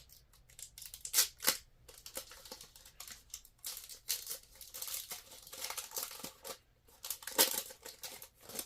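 A trading-card pack wrapper being crinkled and torn open by hand with difficulty: a run of irregular crackles and rips, sharpest about a second in and again near the end.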